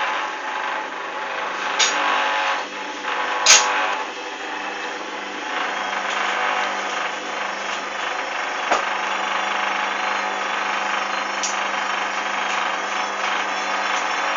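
Hoover Dynamic A59 washing machine spinning towels after a 60 °C main wash: a steady motor whine with a few sharp knocks, the loudest about three and a half seconds in.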